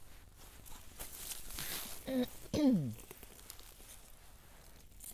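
Soft rustling and crinkling of wild garlic flower stalks and leaves being handled, with a woman's short exclamation, falling in pitch, about halfway through.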